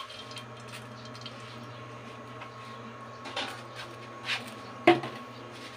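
Frying pan knocking against the stove a few times, the loudest knock about five seconds in, over a steady low hum while the oil in the pan heats.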